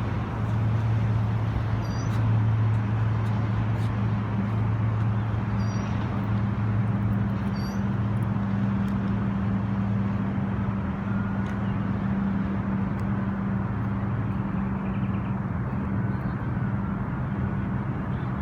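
A large engine running steadily with a low, even hum over a bed of outdoor city noise, with a few brief high chirps.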